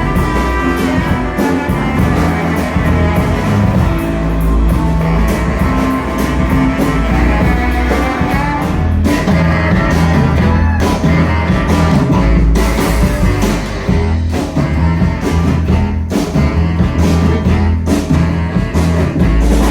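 Live low-rock band playing: deep baritone saxophone lines over bass and a steady drum beat.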